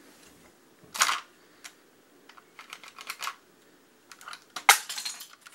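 Dry plastic clicks and clatter of a Lego-brick shotgun being handled and moved, with two sharper knocks, one about a second in and a louder one near the end, and lighter clicks between.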